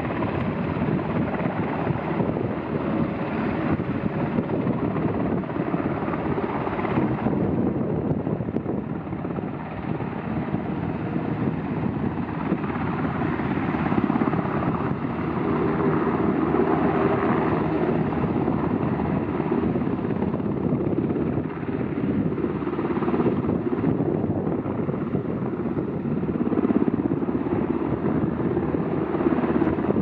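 A Coast Guard helicopter flying nearby, its rotors and engine making a steady, loud noise.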